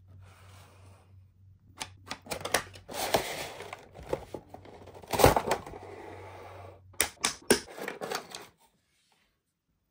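Toy packaging being handled and opened by hand: a quick run of clicks, crinkles and rustles, with one sharp, louder snap about halfway through, cutting off suddenly near the end.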